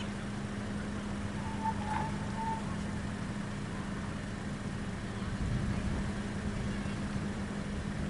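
Diesel locomotive of a passenger train running with a steady low hum over a broad rumble that swells about two-thirds of the way through. A few short high tones sound about two seconds in.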